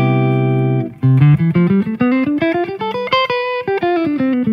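PRS NF3 electric guitar: a C major 7 chord rings out, then the C Ionian (major) scale is picked note by note. It climbs to a high point about three seconds in and comes back down.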